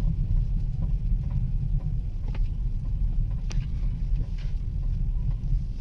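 Steady low rumble of a Chevrolet Tracker being driven, heard from inside the cabin, with a few faint light clicks.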